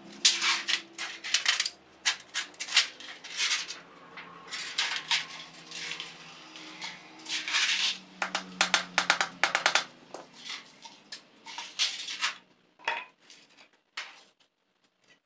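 Hand tin snips cutting thin sheet metal: a quick series of crisp metallic snips with rattling of the sheet. The snipping stops about twelve seconds in, leaving a few faint handling clinks.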